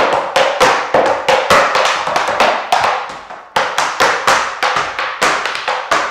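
Metal taps of tap shoes striking a wooden board in a quick, rhythmic tap-dance combination, about four to five strikes a second, with a brief pause a little past the middle.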